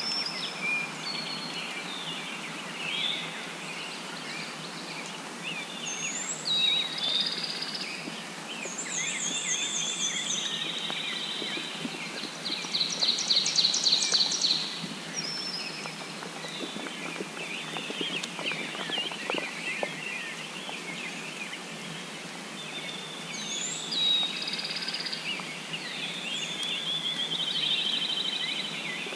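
Several birds singing at once, a spring chorus of chirps, whistles and trills that overlap throughout. The loudest is a fast pulsed trill in the middle.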